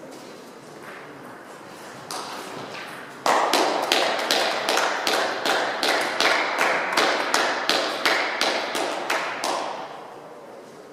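Spectators clapping, setting in suddenly about three seconds in and falling into a rhythmic beat of about three claps a second before dying away near the end.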